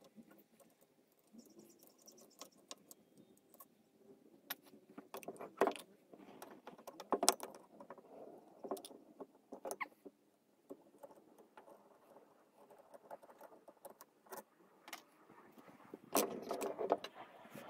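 Irregular clicks and clinks of small hard parts being handled and set down, with louder knocks about five and seven seconds in and a busy cluster of clatter near the end.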